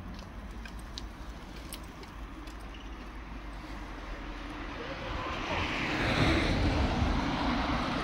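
A motor vehicle approaching and passing: a low rumble and hiss that grows louder from about five seconds in and peaks near the end.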